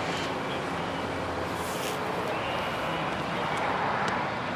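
Steady vehicle noise: engine and road-traffic sound with no sudden events, plus a brief hiss about a second and a half in and a couple of light clicks near the end.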